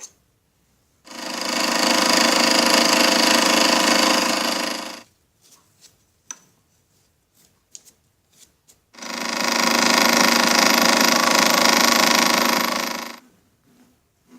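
A power tool run twice, about four seconds each time: each run spins up quickly, holds a steady buzzing whine and winds down, with small clicks and knocks of handling in the pause between.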